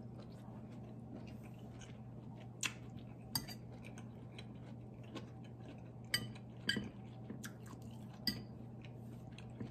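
Metal fork clinking against a ceramic plate while eating: several sharp, separate clinks spread out over a few seconds, over a steady low hum.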